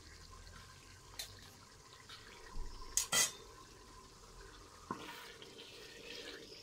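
Spoon stirring in stainless steel cooking pots on a stove, with sharp clicks of utensils against the pots: a pair of knocks about three seconds in and single ones before and after. A soft hiss starts about five seconds in.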